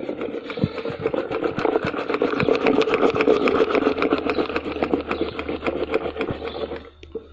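Wooden dal ghotni (churning stick) spun rapidly back and forth between the palms inside a steel pot of dal: a fast, dense rattle of wood knocking and swishing against the metal as the dal is mashed smooth. It stops suddenly just before the end.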